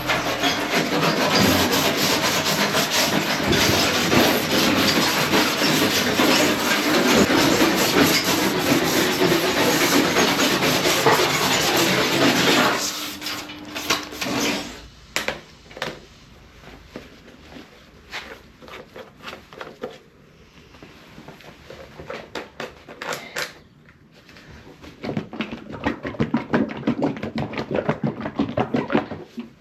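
Painted car body panel being scuffed by hand with an abrasive, a steady rasping scrape for about thirteen seconds, then short, scattered scrapes with a longer burst near the end. The paint is being keyed so the paint stripper can bite.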